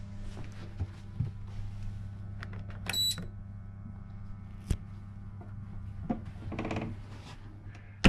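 A sleeper compartment's rotary light switch being turned: a few light clicks and one sharp click just past halfway, over a steady low electrical hum. A brief high ping comes about three seconds in and a short buzz near the end.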